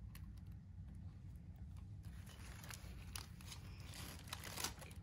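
Faint rustling and light clicks of small things being handled, scattered and a little busier from about two seconds in, over a low steady hum.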